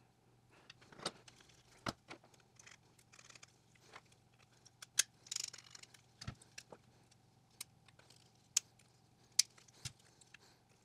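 Hard plastic parts being handled and fitted together: scattered light clicks and taps with a few sharper snaps, as a 3D-printed ABS fuel-door and trunk release lever assembly is put back together.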